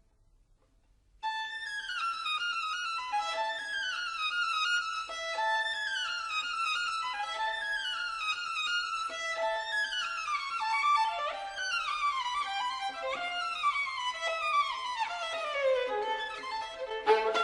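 Background violin music playing quick descending runs of notes over and over, starting after about a second of near silence.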